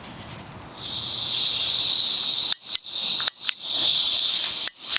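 Portable gas camping stove hissing with its valve open and the burner unlit, while the igniter fails to spark in the strong wind. The hiss starts about a second in and drops out briefly several times.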